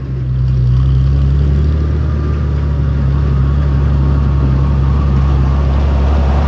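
Small garden tractor's engine running steadily with a low hum as the tractor drives up close, growing louder over the first second and then holding steady.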